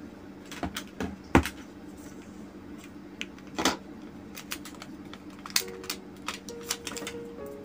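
Crinkling and clicking of a clear plastic packaging bag being handled and pulled open, in scattered bursts, with one sharp knock about a second in.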